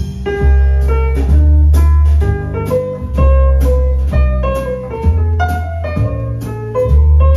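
A vinyl record playing through a turntable with a My Sonic Lab Eminent GL moving-coil cartridge: jazz-like music of plucked, guitar-like notes over long, deep bass notes.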